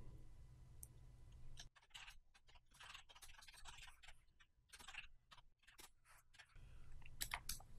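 Faint computer keyboard typing: a run of quick, irregular keystroke clicks starting about two seconds in, with a few more near the end.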